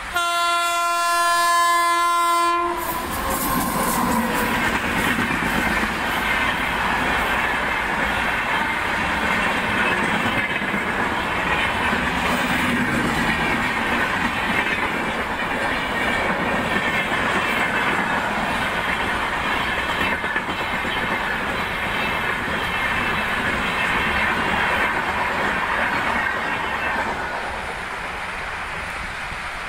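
A train sounds one steady horn note for about two and a half seconds as it approaches, then passes at speed with a sustained rush of wheels and rattling carriages, clickety-clack over the rail joints, for over twenty seconds before fading near the end.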